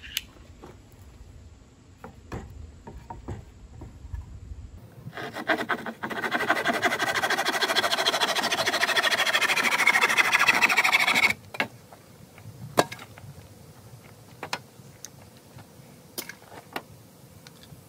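Red-handled hand saw cutting through a wooden 2x6 board with quick, steady strokes, starting about six seconds in and stopping about five seconds later. Light clicks and knocks of wood and tools being handled come before and after.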